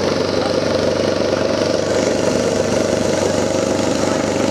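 Drag racing motorcycle engines running steadily at the start line, an even drone with no hard revving.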